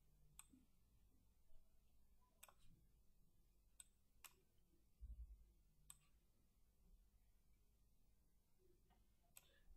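Near silence broken by about six faint computer mouse clicks, spread unevenly, and a soft low bump about halfway through.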